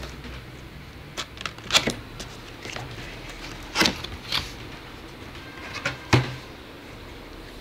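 Cardboard box being opened by hand: flaps pulled open and handled, with a handful of sharp knocks and scrapes of cardboard, the loudest about two seconds in and again about six seconds in.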